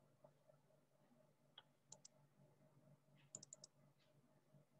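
Near silence: room tone with faint, scattered clicks, a pair about two seconds in and a quick run of four about a second and a half later.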